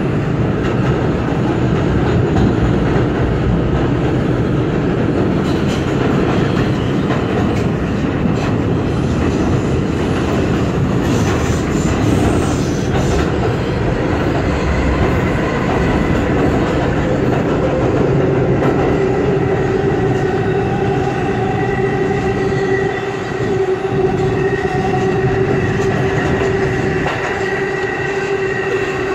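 New York City subway 4 express train running at speed through the tunnel: a loud, steady rumble and clatter of wheels on rails. About halfway through, a steady whine joins the rumble and holds to the end.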